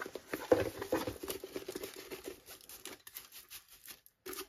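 Rustling and crinkling of a softback diamond painting canvas and its plastic cover film as it is unrolled off a tube by hand, loudest in the first second and a half and then thinning out.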